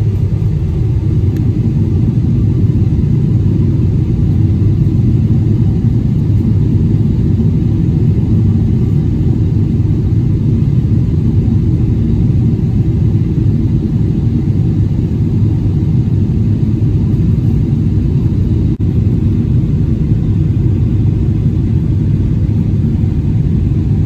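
Steady low roar inside a jet airliner's cabin on final approach: engine and air noise heard from a window seat over the wing, even throughout.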